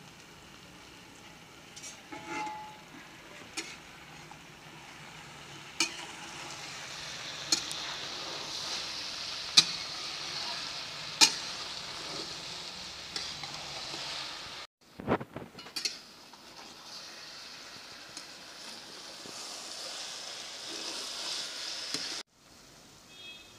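Potato and eggplant curry sizzling in a steel kadhai as a metal spatula stirs it, with several sharp clinks of the spatula against the pan.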